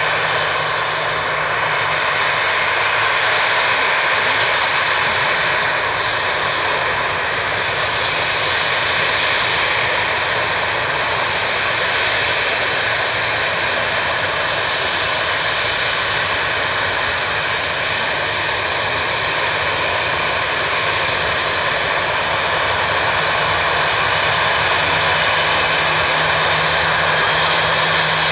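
Boeing 737-800's CFM56-7B turbofan engines running at taxi thrust: a steady jet rush with a held high whine, swelling and easing gently every few seconds.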